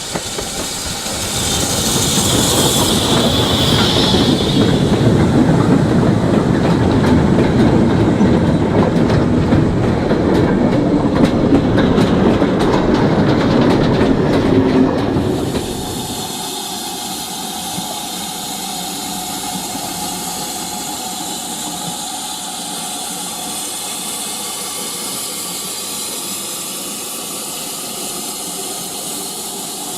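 Train running, with a dense rattling clatter of wheels over the rails and a high-pitched note over the first few seconds. About 16 seconds in, it cuts abruptly to a quieter, steady hiss.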